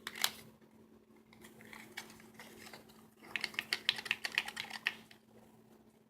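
Small product packaging being handled: a sharp click at the start, then a run of rapid light clicks and crackles lasting about a second and a half, from about three seconds in.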